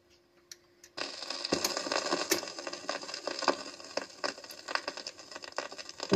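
Crackles and pops of record surface noise, starting abruptly about a second in: the stylus of a Garrard Model 50 autochanger running in the lead-in groove of a seven-inch record. Before that there is only a faint steady hum.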